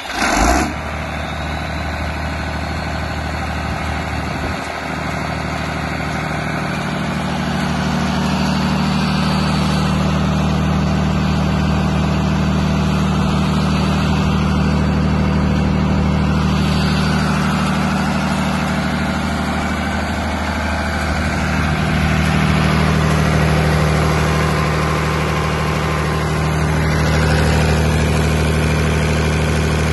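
Iveco 8061 six-cylinder diesel engine of an irrigation pump set starting up, catching abruptly, then running steadily. It grows a little louder about five seconds in and again a little past twenty seconds.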